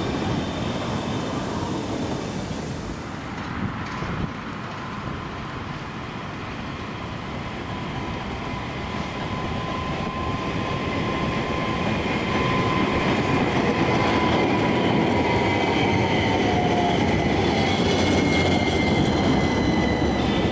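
CAF Urbos A35 low-floor tram approaching and passing on street track, its running noise growing louder through the second half. A thin, steady whine runs under it and drops in pitch as the tram slows.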